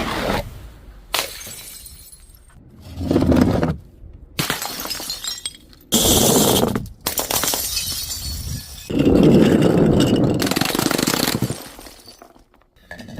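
Glass bottles smashing and shattering in a series of separate crashes, each followed by ringing, tinkling shards, with a quieter gap near the end.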